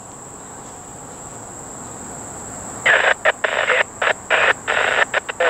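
Railroad trackside defect detector's synthesized voice announcing over a radio: a pause with faint radio hiss, then, about three seconds in, the voice resumes in choppy bursts. A steady high insect drone runs underneath.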